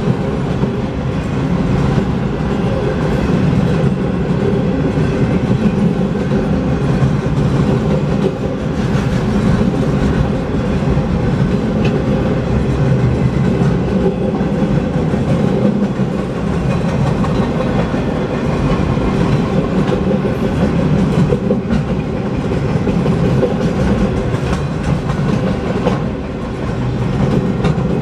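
Empty freight train of wind-turbine transport cars rolling past at speed, a steady loud rumble and clatter of wheels on the rails.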